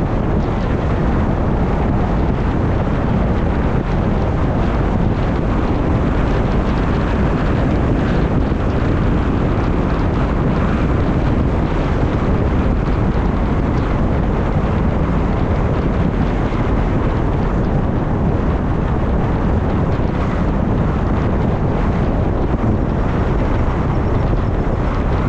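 Steady low rumble of wind buffeting the microphone, mixed with street traffic noise.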